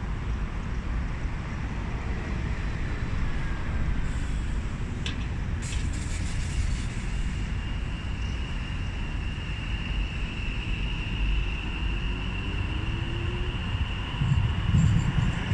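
Class 701 Aventra electric multiple unit moving slowly away, a low rumble of the train running on the track with a steady high electric whine from its traction equipment and a faint rising tone as it gathers speed. Wind buffets the microphone near the end.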